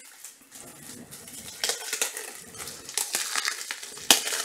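Crackling, crinkling plastic packaging being handled and torn open, as a pack of rigid plastic card top loaders is unwrapped, with a sharp snap near the end.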